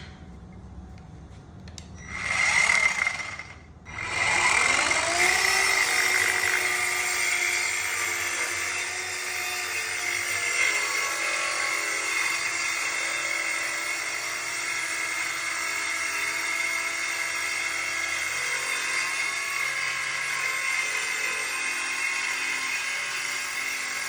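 Power saw: a loud burst lasting about a second and a half, then the motor starts up again, its pitch climbing, and runs steadily with a high whine.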